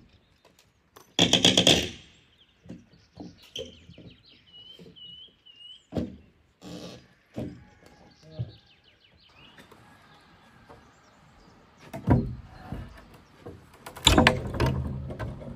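Loud knocks and clattering from handling building materials during work, the loudest a clatter of nearly a second about a second in and more near the end, with smaller knocks between. A small bird chirps and twitters in the gaps.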